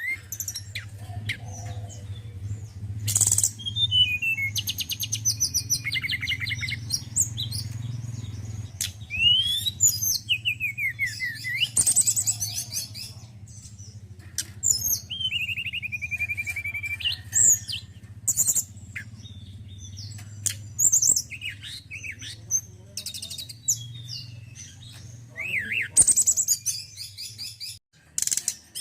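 Male tledekan gunung songbird singing a varied run of chirps, quick trills and whistled phrases, with a steady low hum underneath that stops near the end.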